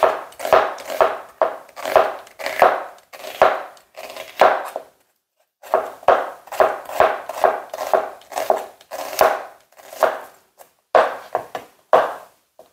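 Chef's knife slicing a white onion on a plastic cutting board in steady strokes, about two a second, with a brief pause about five seconds in.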